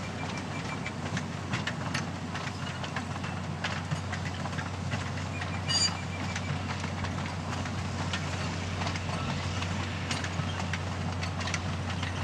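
A rake of sugar cane bins on a narrow-gauge cane railway rolling past steadily, with frequent irregular clicks from the wheels and couplings over a steady low hum. There is a brief metallic ring about six seconds in.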